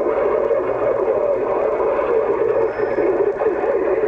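CB radio receiver carrying a strong but garbled transmission: steady noise with warbling tones and no clear words.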